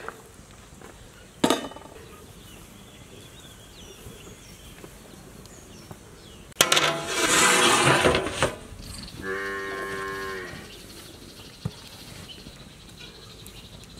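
An animal calls twice: first a loud, harsh call, then a steady call held on one pitch for about a second and a half. A short knock comes about a second and a half in.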